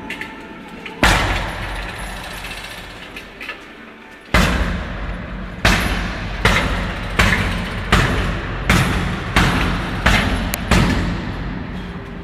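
Roundhouse kicks landing on a heavy punching bag: about ten loud smacks, the first two a few seconds apart, then a quick run of eight roughly every 0.7 s, each ringing on briefly in a large echoing hall.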